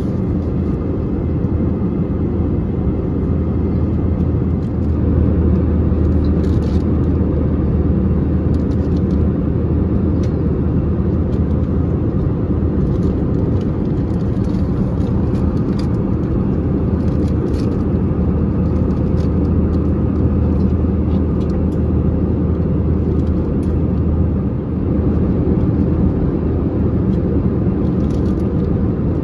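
Steady low drone of engine and airflow noise heard inside the cabin of an Airbus A321 airliner, with a few faint clicks.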